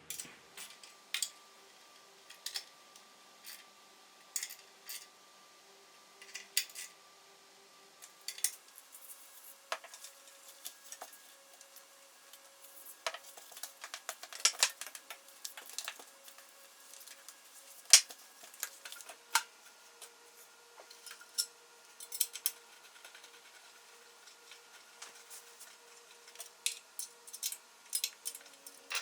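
Small metal parts and tools being handled, giving sharp clicks and clinks at irregular intervals, busiest in the middle.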